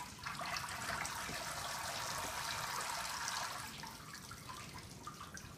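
Tanning solution draining off a soaked deer hide held up over a plastic bucket, trickling and splashing into the liquid below. The flow eases off after about four seconds.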